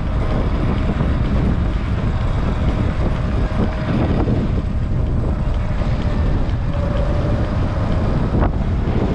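Strong wind rushing and buffeting over the microphone while riding a Sur-Ron X electric dirt bike into a headwind, a steady low rumble throughout.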